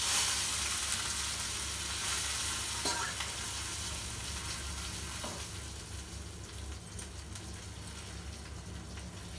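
Spices sizzling in hot oil as a tempering: curry leaves and dried red chillies going into oil with mustard seeds, cumin and turmeric. A loud hiss starts suddenly and slowly dies down, with a few light taps.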